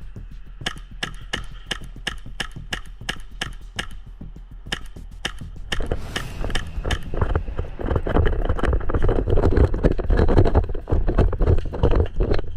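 Footsteps and rattling gear of an airsoft player moving through the building: a quick run of clicks and knocks, growing louder from about six seconds in with heavy rustling and thudding as the movement picks up.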